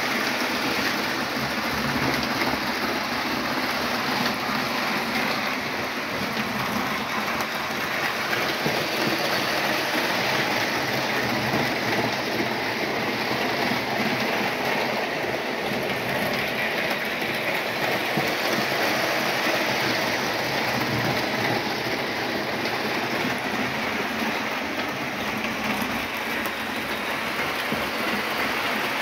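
Model train running on the layout's track: a steady, continuous rattle of wheels on the rails and motor noise, with no breaks.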